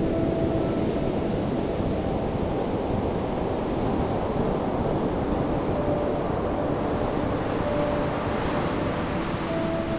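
Steady, dense rushing noise like surf or wind, with faint held tones that come and go: part of an abstract sound-design soundscape.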